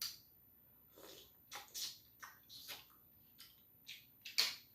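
Close-miked mouth sounds of someone eating butter-sautéed mussels: wet chewing and lip smacks in short, irregular bursts, the sharpest about four seconds in.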